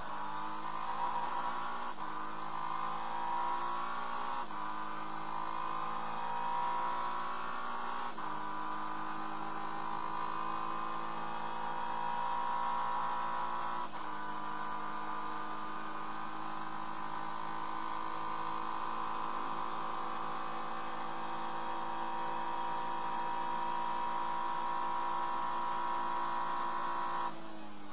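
Acura NSX GT3 race car's twin-turbo V6 heard from inside the cockpit, accelerating and upshifting through the gears: the pitch climbs and then steps down at each shift, about 2, 4, 8 and 14 seconds in, followed by a long, slowly rising pull that is cut off suddenly near the end.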